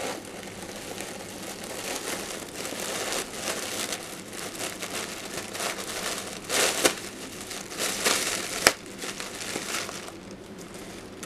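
Clear plastic bag crinkling and rustling as it is handled and opened, with a louder burst of crinkling partway through and a single sharp click shortly after.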